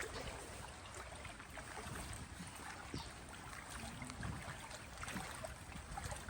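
Steady rushing of a shallow freshwater creek, with small scattered splashes from wading through the water.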